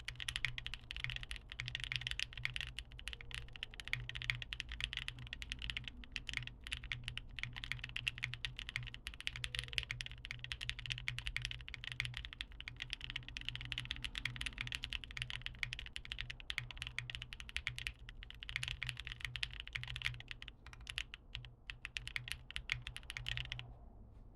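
Continuous typing on a mechanical keyboard with TKC Kiwi tactile switches, a polycarbonate plate, GMK Modo2 keycaps and no foam: a rapid, uneven clatter of keystrokes, picked up by a phone microphone. The typing stops near the end.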